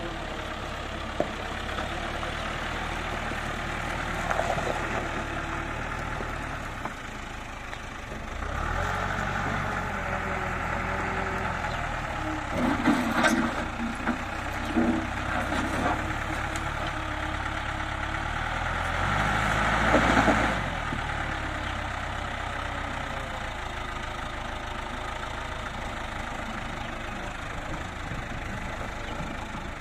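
Caterpillar 428 backhoe loader's diesel engine running steadily, revving up twice as the front loader works. Loud clanks and scrapes come around the middle as the bucket digs into the dirt verge.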